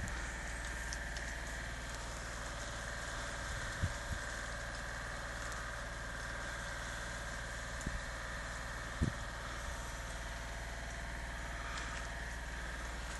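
A steady, unexplained low droning hum from the night sky, heard as the 'strange Earth noise', with a hissy mid-pitched band over it and a few dull thumps about four, eight and nine seconds in.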